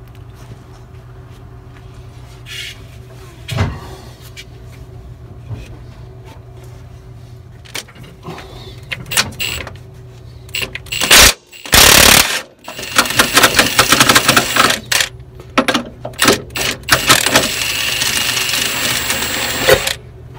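Impact wrench hammering on the steel nuts of the air-spring mounts: quiet tool clinks at first, then from a little past halfway long, loud bursts of rapid hammering as the stubborn nuts are worked off, over a steady low hum.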